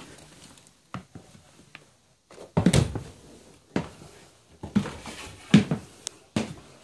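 Footsteps thudding on wooden stairs and floorboards, about one dull step a second.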